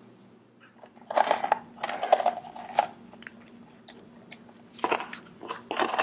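A young German shepherd biting and crunching a microwaved, puffed Himalayan yak-cheese dog chew. There is one long bout of crunching starting about a second in, then shorter crunches near the end.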